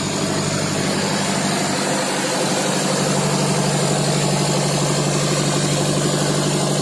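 A fishing boat's inboard engine running steadily, a loud, even hum.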